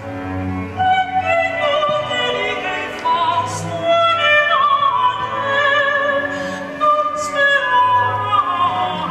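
Classical music: an operatic voice singing long held notes with vibrato over bowed strings.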